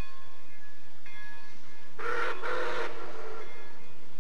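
Steam whistle of Pere Marquette 1225 sounding in two quick blasts about two seconds in, lasting about a second in all. A bell rings in the pauses before the whistle.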